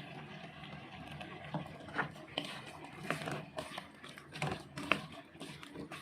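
A cooking utensil knocking and scraping against a pan in irregular clicks while stirring simmering shrimp, squid and squash, over a steady low hiss.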